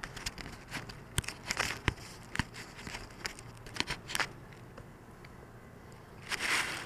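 Irregular light clicks and crackles of contact noise picked up by the camera mounted on the glider, thinning out after about four seconds, then a brief rustle near the end.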